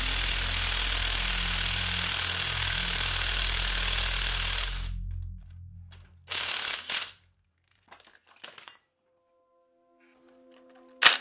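Impact wrench hammering steadily on the forcing screw of a three-jaw gear puller for about five seconds, pulling a hub off a Wheel Horse garden tractor shaft. It is followed by a short second burst and a few light clatters as the loosened hub is handled, with a sharp clack near the end.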